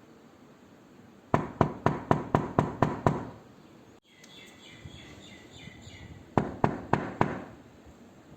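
Knuckles knocking on a door: a quick run of eight knocks, about four a second, then after a pause a second run of four.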